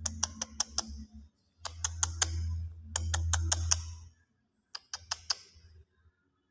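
Rapid sharp clicks, about six a second, in four short bursts separated by brief pauses.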